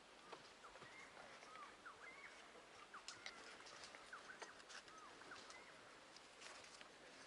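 Faint outdoor ambience with many short, hooked chirping calls from small birds, and scattered light clicks.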